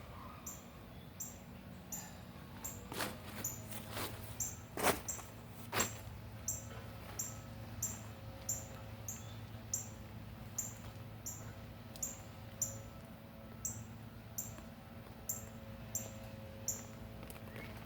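Short, high-pitched chirps repeating evenly, a little more than one a second, from a small creature calling nearby. Between about three and six seconds in, a few sharp knocks break in, the loudest about five seconds in, typical of a digging tool striking soil and potatoes.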